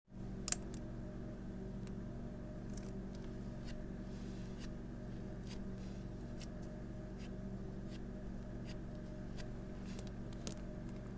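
Glitter slime being pressed by hand through a round metal wire rack, giving scattered small clicks and pops over a steady low hum, with one sharper click about half a second in.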